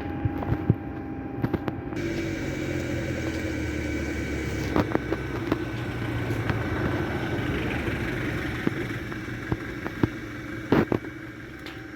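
A motor vehicle engine running steadily, with scattered sharp clicks and knocks over it. The sound changes abruptly about two seconds in.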